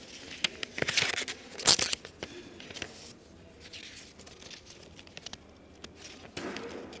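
A sheet of paper rustling and crinkling as it is unfolded and handled, with a cluster of sharp crackles between about half a second and two seconds in, then softer rustles.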